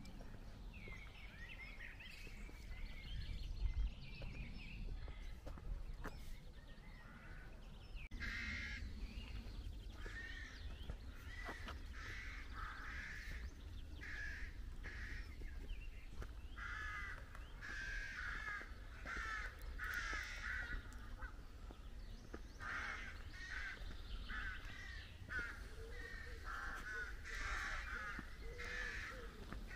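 Crows cawing, many short calls in quick succession that overlap one another, starting about a quarter of the way in and going on to the end.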